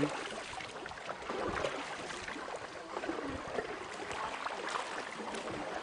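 Water lapping and splashing against the hull of a small boat moving along a river, an even wash of noise with small irregular ticks. Faint distant voices come through now and then.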